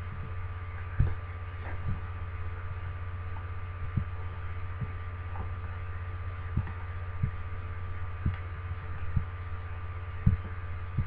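Steady low electrical hum with two fainter steady tones above it, broken by about nine soft, low thumps at irregular intervals.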